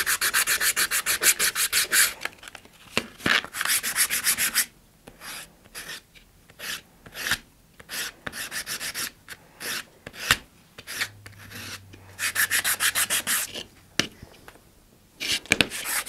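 A short cardboard rocket-motor casing tube rubbed by hand on sandpaper fixed to a sanding bar, smoothing and rounding its freshly sawn end. The strokes come in quick, even runs of about ten a second, with slower, scattered strokes and short pauses between the runs.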